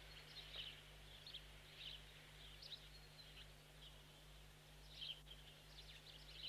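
Faint birdsong: scattered short, high chirps from small birds, over a low steady hum.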